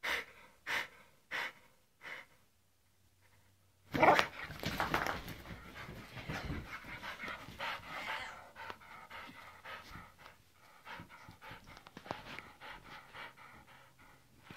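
Pit bull panting hard in its post-bath excitement: a few evenly spaced puffs, a short quiet spell, then a sudden loud noise about four seconds in, followed by quick, continuous panting.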